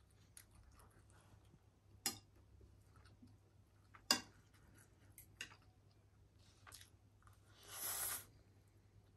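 Chopsticks and a spoon clicking against a plate of ramyun noodles, with two sharp clicks about two and four seconds in and a few lighter taps. Near the end comes a short slurp of noodles being sucked in.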